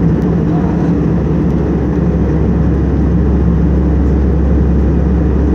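Jet airliner cabin noise in cruise: a steady low rumble of engines and airflow, heard inside the cabin.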